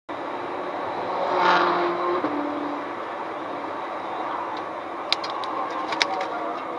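Road and wind noise of a car at highway speed, with a car's engine swelling loudly about a second and a half in and dropping in pitch as it goes past. A few sharp clicks follow near the end.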